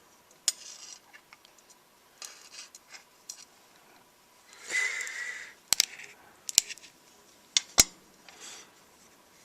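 Small screwdriver and tiny screws working on a Flip camcorder's plastic case during disassembly: scratchy scrapes, one with a brief squeak about five seconds in, then several sharp clicks.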